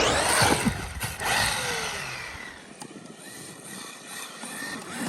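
Traxxas X-Maxx RC truck's electric brushless motor whining with the throttle, its pitch gliding down as the truck slows, over the rushing noise of its tyres in snow. It grows fainter through the middle and picks up again near the end.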